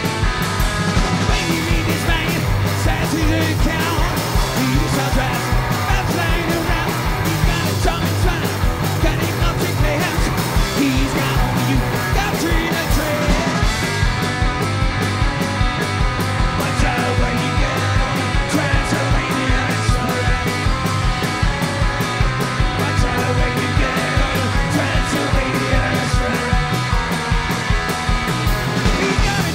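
Live rock band playing: electric guitar, bass guitar and drums over a fast, steady driving beat.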